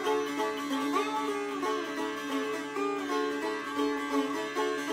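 Sitar played in a fast jhala, the closing section of a raga: a quick run of plucked strokes, with a few notes bent along the string.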